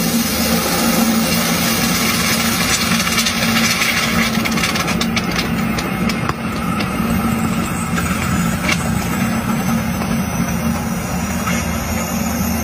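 A red-hot steel ball sizzling as it melts down into a block of clear ice, with a few sharp cracks from the ice, over a steady low hum.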